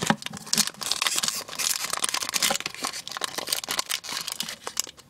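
Foil wrapper of a Pokémon booster pack crinkling and crackling in irregular bursts as fingers grip and pull at it to open it, dying away near the end.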